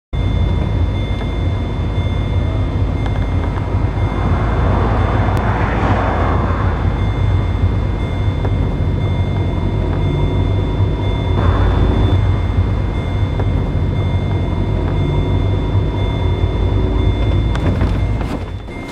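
Low, steady rumble of a car driving, heard inside the cabin, with two swells of rushing noise about five and eleven seconds in. The rumble drops away near the end.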